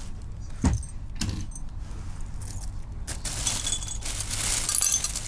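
Broken glass shards clinking and tinkling as a gloved hand gathers them off a rug after an earthquake. A few sharp clicks come in the first second and a half, and a denser run of jingling near the end.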